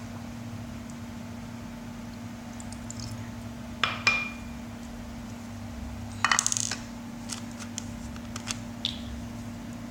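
Hard containers and utensils being handled while mouthwash is mixed with water: two sharp clinks about four seconds in, one with a brief ringing note, a short clatter of knocks a couple of seconds later, then a few light ticks, over a steady low hum.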